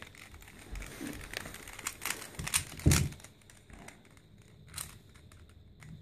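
Plastic Rubik's cube being turned by hand, an irregular run of clicks and clacks from its layers turning, with a louder knock about three seconds in.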